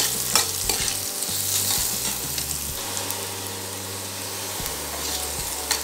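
Carrot strips sizzling in hot oil in a stainless steel kadai, stirred with a steel spoon that clicks and scrapes against the pan during the first few seconds. After that comes a steadier sizzle.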